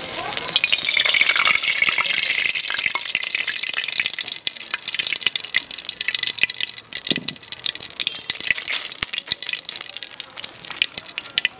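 Cooking oil poured into a hot aluminium wok, sizzling loudly as it hits the metal, then settling into a steady crackle as it heats.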